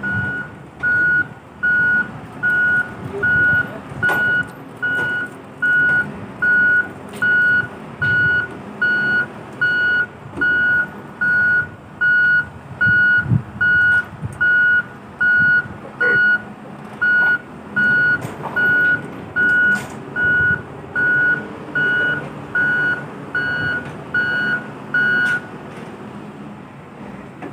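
Wheel loader's reversing alarm beeping steadily, about once a second, over its diesel engine running. The beeping stops near the end.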